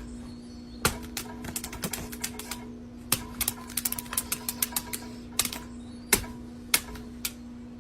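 A run of sharp, irregular clicks and taps, several a second between about one and five seconds in and then spaced out, over a steady low hum.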